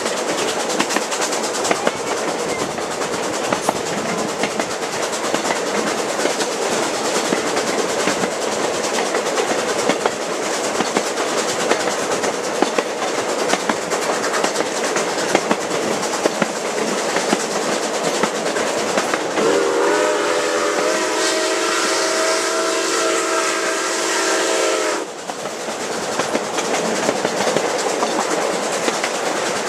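Rolling rumble and clickety-clack of a passenger car riding behind a steam locomotive. About two-thirds of the way through, the locomotive's steam whistle sounds one long blast of several pitches at once for about five seconds, then cuts off sharply.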